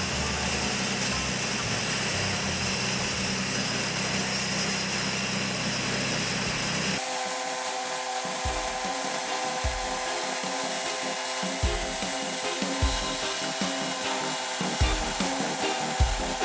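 A DIY band sawmill running and cutting as a steady noise that cuts off abruptly about seven seconds in, followed by background music with a slow, evenly spaced beat.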